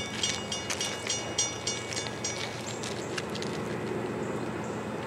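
Railroad crossing bell ringing about four strikes a second, fading out about halfway through, over the steady rumble of an approaching diesel freight train.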